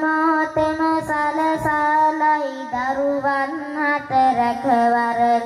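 Young novice Buddhist monk singing a Sinhala kavi verse in a child's voice, holding long notes that step and slide between pitches. The line drifts lower toward the end.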